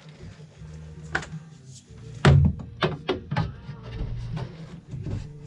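A run of sharp, irregular clicks and knocks from plumbing parts being handled and fitted together, the loudest about two seconds in, over quiet background music.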